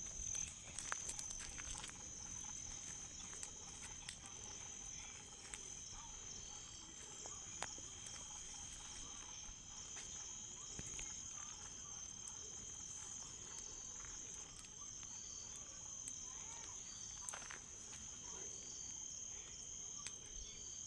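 Crickets trilling in a steady high-pitched chorus, with scattered sharp crackles and pops from a burning bonfire.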